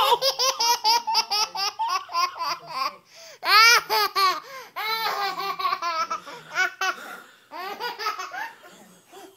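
Toddler laughing hard in long runs of quick, rapidly repeated high-pitched laughs, with a loud squeal of laughter about three and a half seconds in. The laughter fades near the end.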